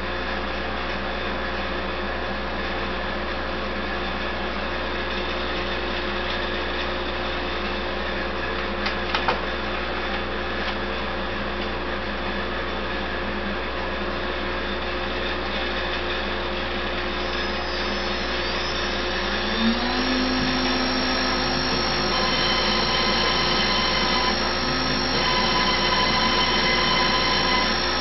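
The CNC router table runs with a steady machine whir. A couple of sharp knocks come about nine seconds in. From about twenty seconds on, the drive motors add whining tones that glide and change pitch as the spindle and gantry move into position.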